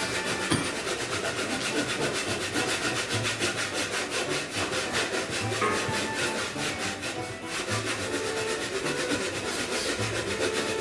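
Hand saw cutting through a piece of firewood in quick, even back-and-forth strokes, ending as the piece is cut through.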